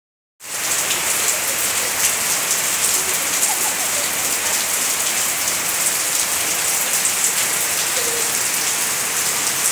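Rain falling steadily onto a wet, puddled yard: a dense, even hiss of many drops pattering on the hard ground and water. It begins about half a second in and does not let up.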